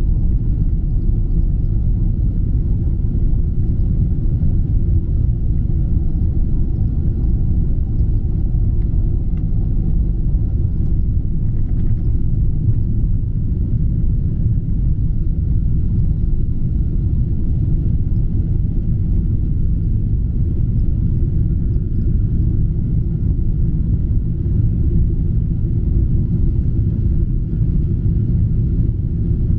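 Jet airliner's engines at takeoff power, heard inside the passenger cabin: a loud, steady low rumble through the takeoff roll and into the climb, with a faint steady whine above it.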